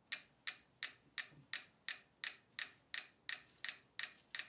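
Two mechanical pendulum metronomes ticking faintly, about three clicks a second. Some clicks come as close pairs because the two beats do not quite line up. The metronomes are coupled through a light shelf on rollers and have not yet fallen into synchrony.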